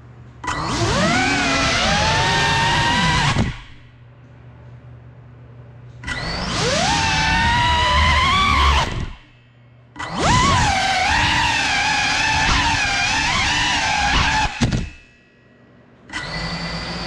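Cineloop cinewhoop FPV drone's motors and propellers whining in four bursts of a few seconds each, the pitch rising and falling with the throttle. It drops to a low hum between bursts.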